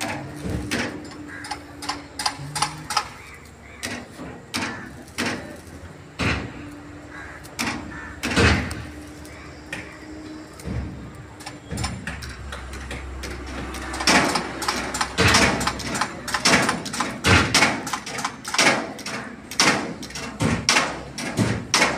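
Irregular knocks and bangs, like metal being struck, coming thicker and louder in the last third.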